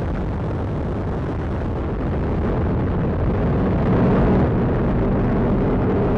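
Atlas V 421 rocket's RD-180 first-stage engine and two solid rocket boosters rumbling as it climbs after liftoff: a steady deep roar that swells a little louder about two seconds in and peaks around four seconds.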